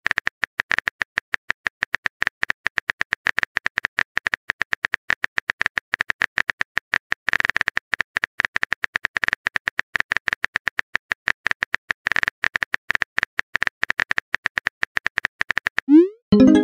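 Phone keyboard typing sound effect: rapid, uneven keypress clicks as a text message is typed letter by letter. Near the end a short rising blip marks the message being sent.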